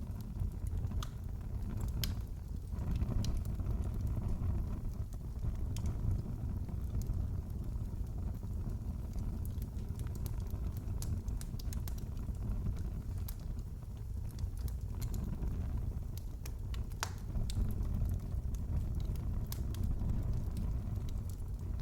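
Wood fire crackling in a fireplace: a steady low rumble of flames under irregular sharp crackles and pops.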